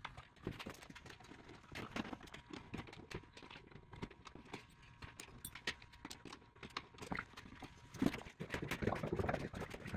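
Scattered clicks and metal knocks of a hand wrench and bolts being worked at the hinge of a steel truck cab door. The knocking grows busier and louder near the end.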